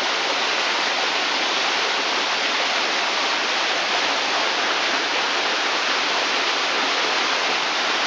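Water of a small stream running steadily down a narrow stone channel over rocks.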